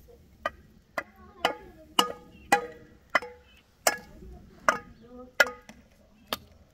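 A wooden stick beaten on metal cooking pots: about a dozen sharp knocks, each with a brief ringing, at an irregular beat of roughly two a second.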